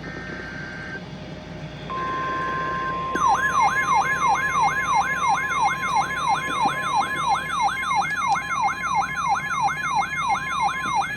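NOAA Weather Radio alert tones. A warbling two-tone SAME data burst ends about a second in. The steady 1050 Hz warning alarm tone starts about two seconds in, and about a second later an electronic siren-style alarm joins it, a tone sweeping down nearly three times a second that runs on past the end.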